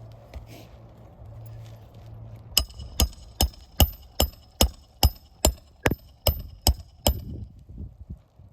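Hammer striking metal about a dozen times at an even pace, roughly two to three blows a second, each blow with a short metallic ring, during hand work on asphalt roof shingles. A low steady hum comes before the blows begin, about two and a half seconds in.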